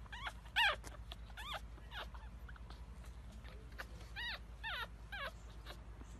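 Very young pug puppies giving short, high-pitched squeaks and whimpers: a few in the first two seconds, then three more about four to five seconds in.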